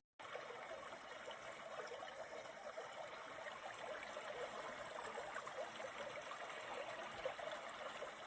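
Ultrasonic cool-mist humidifier running, with a steady trickle of small bubbling, crackling water sounds.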